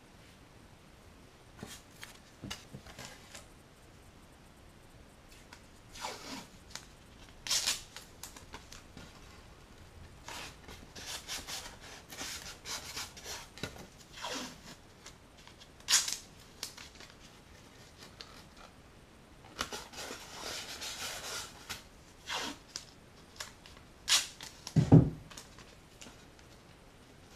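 Blue painter's tape being pulled off its roll and torn, and rubbed down by hand onto pink foam board, in short scattered rasps with one longer stretch of rasping. A single dull thump near the end is the loudest sound.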